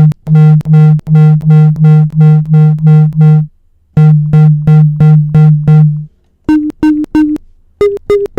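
A recorded audio-feedback tone played back from a software sampler as short repeated notes, about four a second: a low pitched tone for several seconds with a brief break, then three higher notes and a faster run of still higher ones near the end. It is raw feedback material being auditioned as the basis for a synthesized snare drum.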